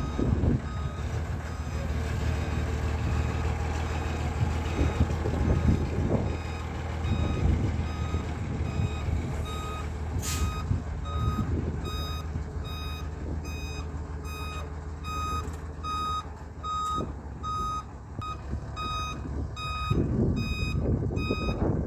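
Truck-mounted crane lifting and swinging a counterweight load, its diesel engine running with a low steady hum while a warning beeper gives regular short beeps, a little more than one a second. The beeps grow louder about halfway through as the engine hum eases.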